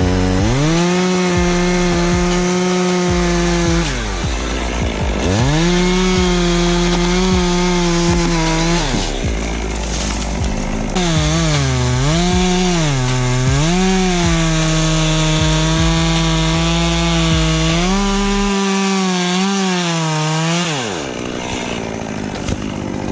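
Two-stroke chainsaw cutting the dead tree, throttled up to a high steady whine and let back down three times. The pitch dips repeatedly as it works through the wood during the long third run, then winds down near the end.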